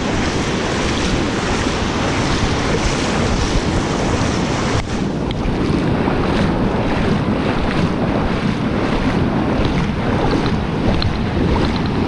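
Sea surf washing and wind buffeting the microphone, a steady dense rush of noise, with one sharp knock about five seconds in.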